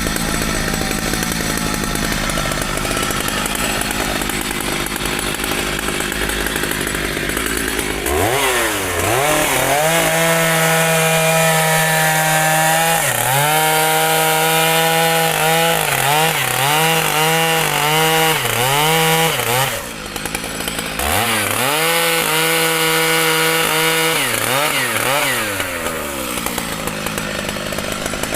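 Two-stroke chainsaw working in mahogany wood: a rough, heavy running for the first eight seconds, then the engine at high revs, its pitch dipping and climbing back again and again, dropping briefly near 20 seconds before picking up once more.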